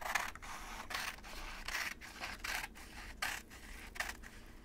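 Scissors cutting through a sheet of paper: a steady run of short snips, about two or three a second.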